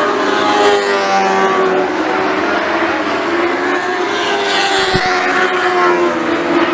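Several lightning sprint car engines racing together, their pitches rising and falling as the cars pass and ease off for the turns.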